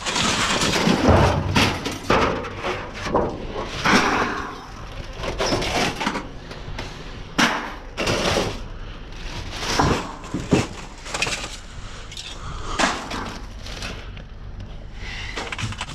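Thin sheet-metal scraps clattering and scraping as they are pulled out and shifted by hand among dumpster debris. The clatter is dense for the first few seconds, then comes as separate knocks every second or two.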